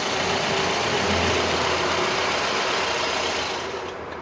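Toyota Camry engine running cold, with the noise that shows up only while it is cold. The sound drops and grows duller about three and a half seconds in.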